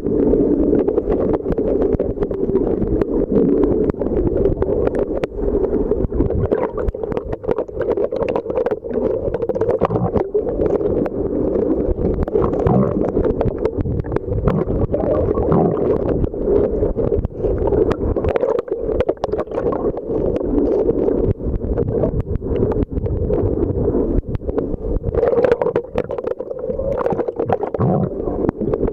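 Underwater ambience heard through a camera's waterproof housing: a steady muffled rush of water with many small clicks and crackles.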